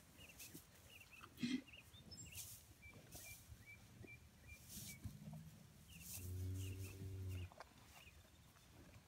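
American Aberdeen heifers eating from loose hay, with hay rustling and a short sharp knock about a second and a half in. About six seconds in, one heifer gives a single low moo lasting just over a second.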